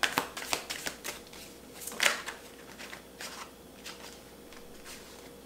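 Oracle cards being shuffled and drawn by hand: a quick run of crisp card flicks in the first second, a louder snap about two seconds in, then a few soft scattered clicks.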